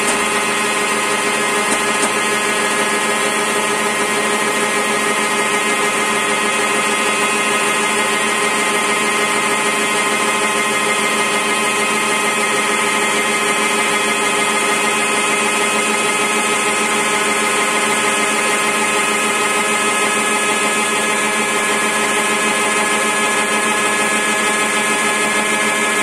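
CNC spindle with a 6 mm two-flute helical flat-end mill cutting a rotating wooden blank into a sphere. It makes a steady, even whine of many tones over a hiss of cutting.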